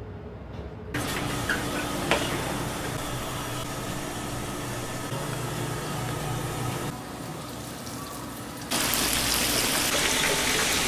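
Steady hissing of chicken deep-frying in hot oil. It is moderate at first and grows much louder about nine seconds in.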